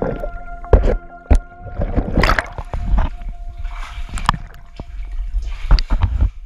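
Underwater diving sound of a scuba diver moving through a flooded cave passage: bubbles, knocks and a steady humming tone. The diver then breaks the surface into an air pocket near the end, and water sloshes around them.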